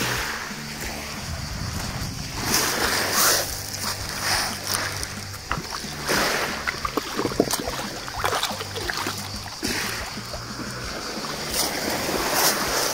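Shallow seawater splashing and sloshing as a plastic tub is dipped and filled at a pebble shore, with small waves lapping. Through the second half come many short clicks and crunches of pebbles shifting.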